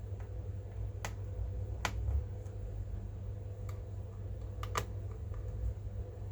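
A handful of sharp, separate clicks from hands working on a laptop during a RAM upgrade, two of them in quick succession near the end, over a steady low hum.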